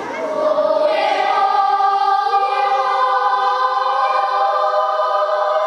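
Children's choir singing, holding long sustained notes in several parts at once.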